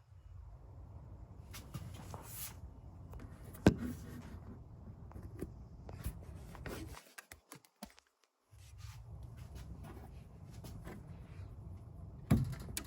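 Hands handling plastic printer parts: scattered light clicks and rubbing over a low steady hum, with one sharper click about four seconds in. The sound drops out entirely for about a second midway.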